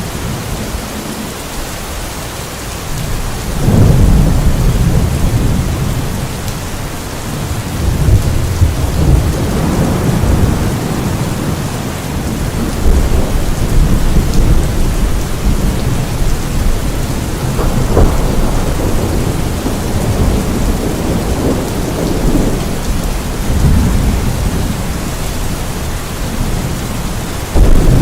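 Steady rain hissing down, with rolling thunder: low rumbles swell up about four seconds in and several times after, and a sharper, louder crack of thunder comes just before the end.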